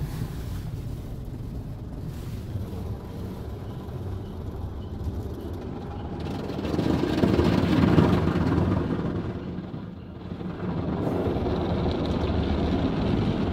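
Rotating car-wash brush swishing across the rear of an SUV, heard muffled from inside the cabin as a steady noise. It swells about seven seconds in and dips briefly about ten seconds in.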